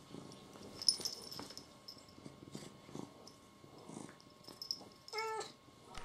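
Domestic cats being handled on a bedspread: soft rustling, a sharp click about a second in, and near the end a short, steady, whining meow from a cat, lasting under half a second.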